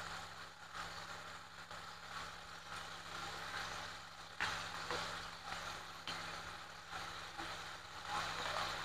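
Faint sizzling of chopped tomatoes and sweet soy sauce frying in a wok, over a steady low hum, with a few light clicks around the middle.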